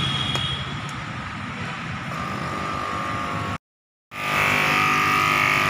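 City street traffic noise: vehicle engines running and passing. After a brief dropout, a loud steady horn-like tone sounds for about two seconds.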